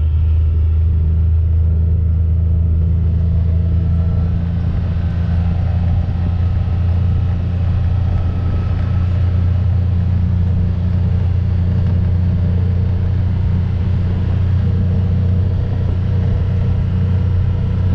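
A vehicle's engine running steadily with a constant low drone.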